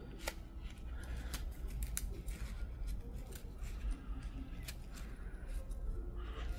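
Small knife scraping and cutting bark from a Chinese juniper bonsai trunk to carve a shari (stripped deadwood). It makes scattered sharp clicks and short scrapes.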